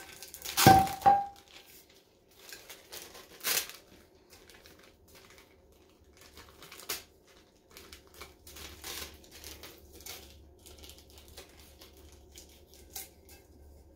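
Glitter-coated repositionable adhesive vinyl being peeled off a stainless steel tumbler and handled, crinkling and crackling irregularly. A sharp, loud snap with a brief ring comes about a second in, followed by a few more sharp clicks.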